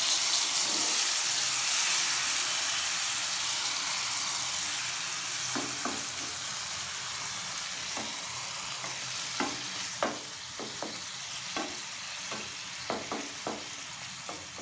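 Water poured into a hot pan of frying royna fish and eggplant, sizzling loudly at first, the hiss slowly fading. From about halfway, scattered light clicks and taps.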